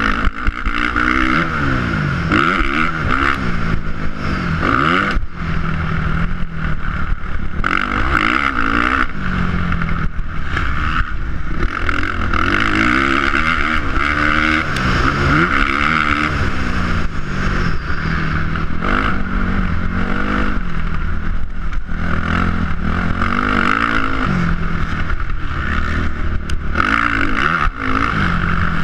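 Dirt bike engine revving up and backing off again and again as the rider accelerates and slows on a motocross track, with wind rushing over the camera microphone.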